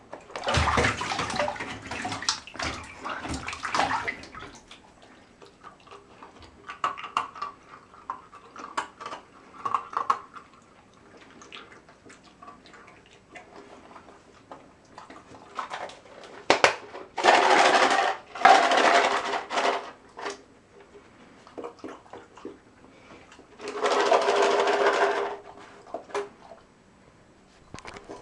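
Bathtub water sloshing and splashing as a golden retriever puppy wades in it and a hand washes it. The water noise comes in loud bursts: one over the first few seconds, two close together past the middle, and one more near the end, with small splashes in between.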